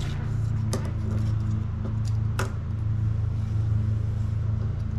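A steady low mechanical hum, with two sharp clicks, one near the start and one about two and a half seconds in.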